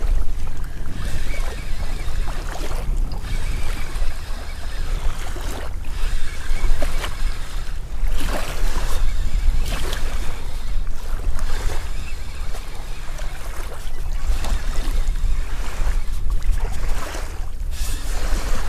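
Wind buffeting the microphone in uneven gusts, over the wash of river waves lapping at the bank.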